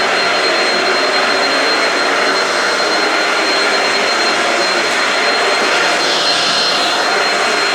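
Corded Shark Rocket stick vacuum with DuoClean running steadily: a constant rush of air with a steady high-pitched motor whine.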